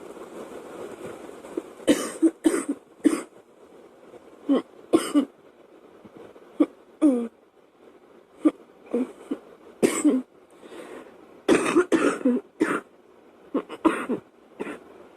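A girl coughing in repeated short fits of one to three coughs with pauses between them, starting about two seconds in.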